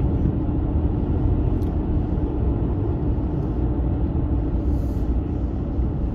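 Steady low rumble of a car driving on a road: engine and tyre noise from a Toyota Hilux.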